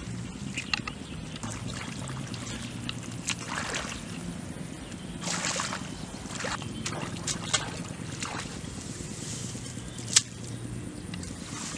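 Hands splashing and sloshing in shallow muddy water while feeling through the mud for eels, in short irregular splashes, with a sharp, louder splash near the end. A low steady hum runs underneath.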